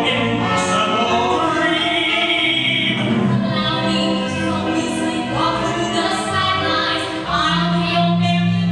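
Stage musical number in waltz time: singers' voices over an orchestral accompaniment.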